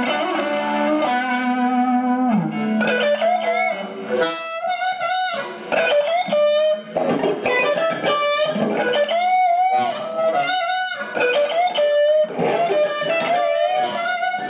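Electric blues guitar playing a lead solo: short phrases of bent, wavering notes over a sustained backing, with no singing.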